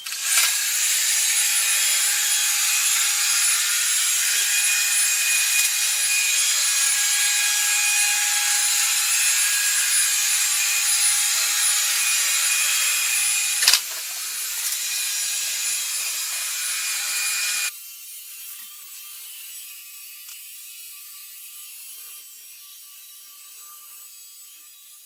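Robot vacuum cleaner running: a steady high motor whine over a mechanical rattle. A sharp click comes about 14 s in, and a few seconds later the noise drops suddenly to a much quieter steady hum.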